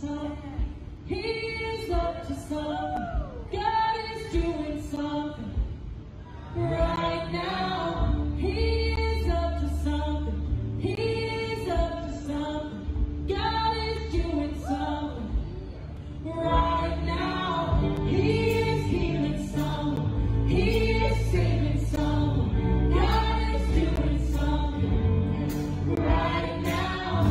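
Worship song with a group of voices singing together over a band. A low bass part comes in about eight seconds in, and the music grows fuller from about sixteen seconds.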